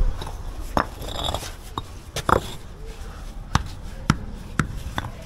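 A series of sharp, irregular knocks and taps, roughly one every half second to second, from hand work on a road-paving job, like stones or tools being knocked into place.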